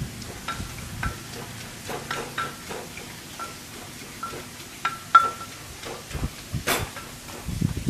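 Pestle knocking and pounding in a mortar as som tam salad is bruised together, in irregular strikes, several with a short ringing clink; the sharpest strike comes about five seconds in.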